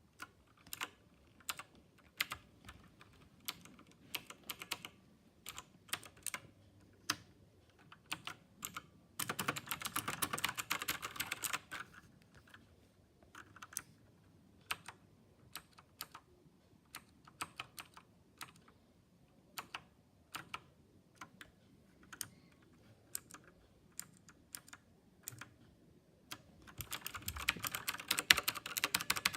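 KLIM Domination mechanical keyboard with blue switches being typed on: single keystrokes with pauses between them, broken by two quick runs of fast typing, one about a third of the way in and one near the end.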